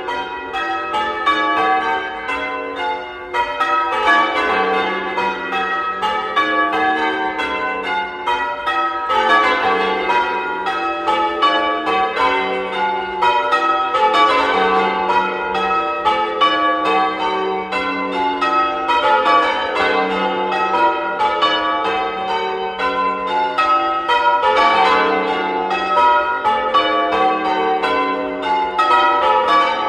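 Change ringing on a ring of eight church bells cast by Taylors in 1871 and 1928, the bells struck one after another in a quick, even rhythm with their tones ringing on and overlapping.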